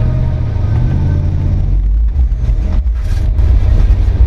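Ford Bronco's engine running under load through deep snow: a heavy low rumble whose pitch rises and falls, with a short hiss about three seconds in.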